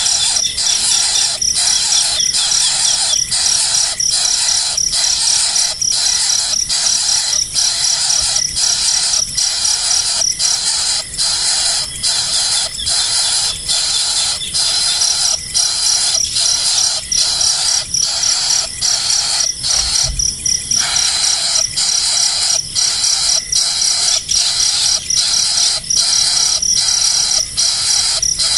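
Loud, continuous high-pitched insect chorus that pulses with short regular breaks about one and a half times a second, with one brief drop a little past two-thirds of the way through.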